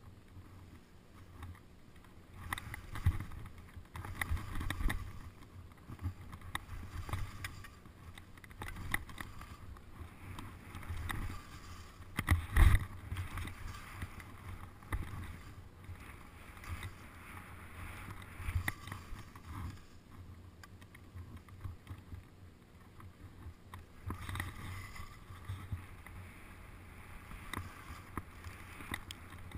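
Skis sliding and scraping over snow through turns, with low thumps as they ride over bumps and wind rushing on the microphone. The loudest thump comes about twelve seconds in.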